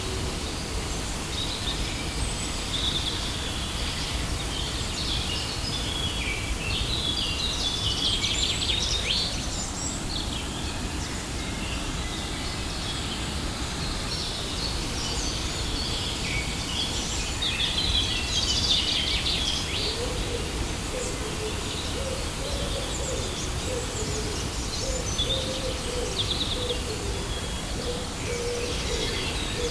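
Steady rush of a waterfall, with small birds chirping and trilling above it in several bursts and a lower wavering call through the second half.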